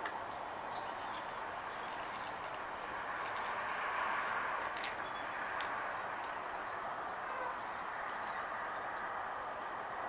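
Small songbirds chirping in short, high calls scattered through, over a steady background hum of outdoor noise that swells slightly about four seconds in.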